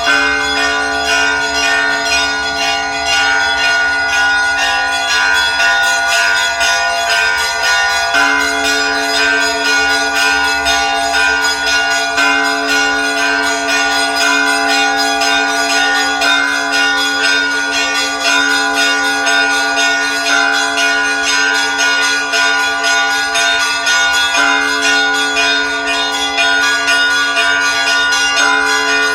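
A peal of church bells ringing continuously: smaller bells struck in quick succession over deeper, ringing bell tones that change every few seconds.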